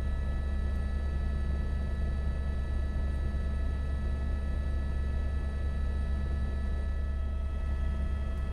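Helicopter in flight heard from inside the cabin: a steady deep rotor and engine drone with a constant high-pitched whine over it.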